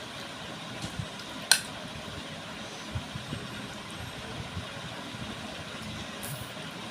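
Steady background rumble and hiss. Over it come a single sharp click about a second and a half in and a few soft knocks as minced chicken filling is spooned onto momo wrappers.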